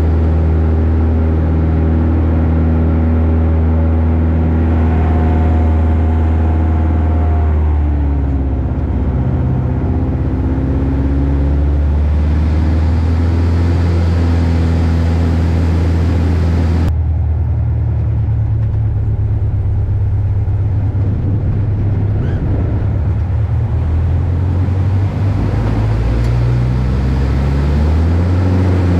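Van's RV-7's piston engine and propeller droning steadily, heard inside the cockpit. The note sags about eight seconds in, shifts abruptly about halfway through, and climbs again near the end.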